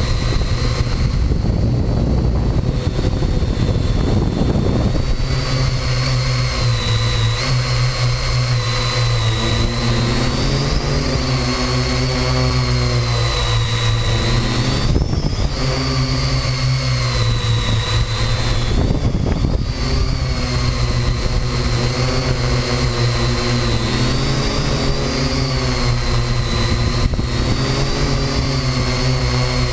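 Parrot AR.Drone 2.0 quadcopter's motors and propellers whining steadily while it hovers, heard from the camera mounted on the drone. The pitch wavers up and down as the motors adjust. The first few seconds are a rougher rushing noise before the whine settles.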